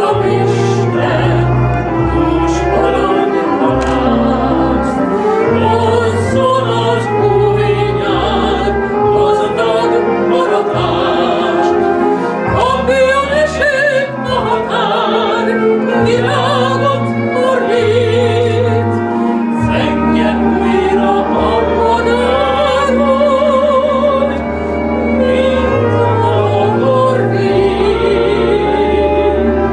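Operatic singing: a woman's voice with wide vibrato over instrumental accompaniment with long sustained bass notes.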